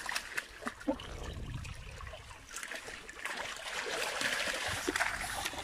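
Shallow water trickling and splashing in a concrete holding channel as live carp are handled and sorted by hand, with many small splashes and drips, growing somewhat louder about halfway through.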